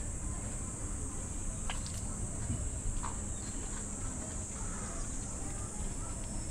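A chorus of insects buzzing steadily at a high pitch, over a low outdoor rumble, with a few faint short chirps and clicks.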